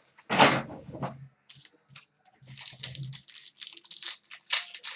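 Trading card packaging torn open and crinkled by hand: a loud rip about half a second in, then a run of smaller tearing and crackling sounds.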